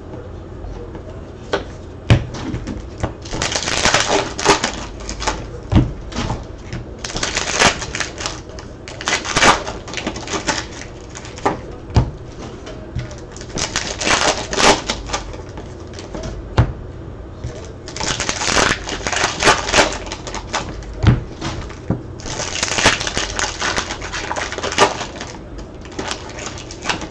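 Trading-card packs and cards being handled: about six bursts of crinkling and rapid clicking, each lasting a second or two, with a few sharp knocks in between.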